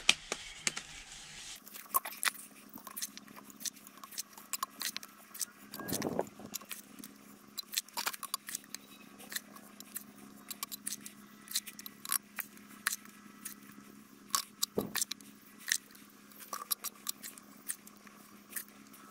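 Wet concrete being scooped from a plastic tub with a small hand shovel and pushed into a stainless-steel bowl mold: irregular clicks, scrapes and taps of the shovel against the tub and the metal rim, over a faint steady hum.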